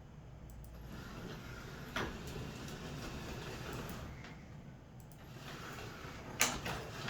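A Roomba-based robot's drive motors running at slow speed as it moves around, a steady low whir. Two sharp knocks break through, one about two seconds in and a louder one near the end.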